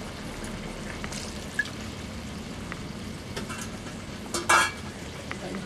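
Brinjal and hilsa fish curry simmering in a metal kadai, a steady sizzling hiss, with a few light clicks and one louder short clatter about four and a half seconds in.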